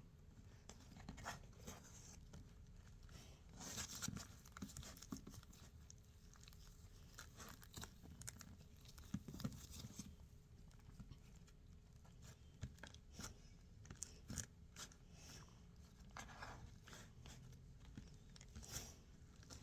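Faint, irregular crackling and soft clicks of pink glitter slime with small balls mixed in, being squeezed and worked by hand.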